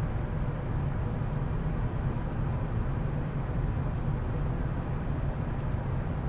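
Steady low rumble of airflow and engines inside a Gulfstream G550 flight deck on final approach, with landing gear and flaps down; a faint steady hum runs under it.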